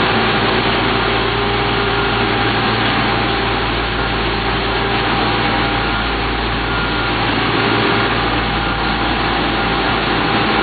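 Engines of an asphalt paver and the dump truck feeding it, running steadily as they roll forward together laying asphalt: a loud, even machine drone with a few faint, steady whining tones over it.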